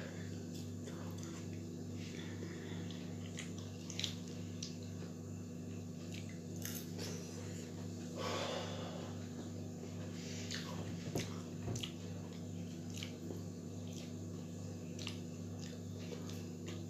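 A man chewing and eating french fries, with occasional light clicks and breathing, over a steady low hum.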